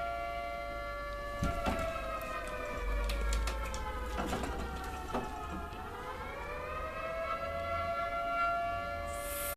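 Recorded nuclear-attack civil-defence siren played through a phone's speaker: a steady wailing chord that dips in pitch about four seconds in and climbs back to its steady pitch near seven seconds. A few sharp knocks are heard early on and around the middle.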